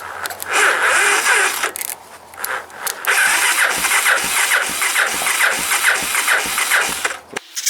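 Electric starter cranking the four-stroke single of a 1985 Honda ATC 250SX three-wheeler on a boosted, long-dead battery, with the engine turning over without firing. There is a short crank about half a second in, then a longer steady crank at about three turns a second that stops suddenly near the end.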